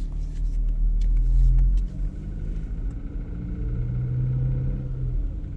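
Car engine running cold in Drive with a loud, low abnormal rumble, heaviest in the first two seconds and then easing, with a low hum returning. It is absent when idling in Neutral and appears only in gear, which the owner considers not normal, a fault that came up after one or two years of use.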